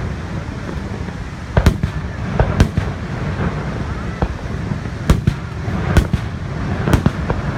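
Fireworks bursting overhead: about five sharp bangs at irregular intervals, some with a short echo trailing off, over a steady background of crowd chatter.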